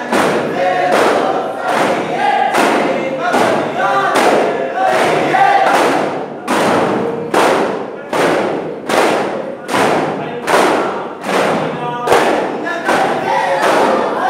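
Daff frame drums struck together by a group in a steady beat of about one and a half strokes a second, with men chanting together between the strokes: daff muttu.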